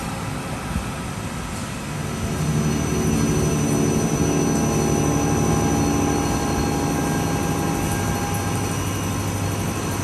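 CNC machine running a C-axis milling operation: a steady machine noise, joined about two seconds in by a louder pitched hum that eases off near the end.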